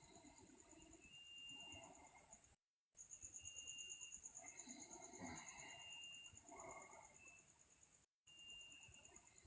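Faint, slow breathing of a sleeping person, a few soft breaths, over a steady high pulsing chirr. The sound cuts out completely twice.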